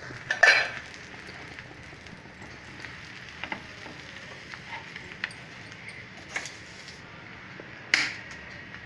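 Butter sizzling steadily in a hot frying pan under pav buns laid down to toast, with a few brief sharp handling sounds as the buns are arranged and pressed, the loudest about half a second in and another near the end.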